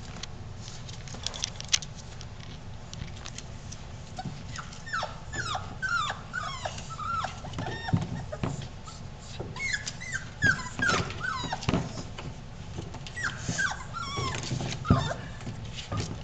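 Five-week-old bullmastiff puppies whining and yelping in many short cries that fall in pitch, coming in clusters from about four seconds in, with a few sharp clicks among them.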